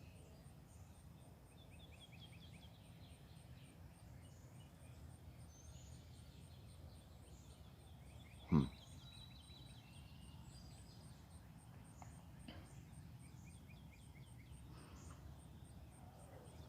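Songbirds chirping and twittering faintly, with a faint, even high ticking behind them. About eight and a half seconds in, one short, loud call drops steeply in pitch.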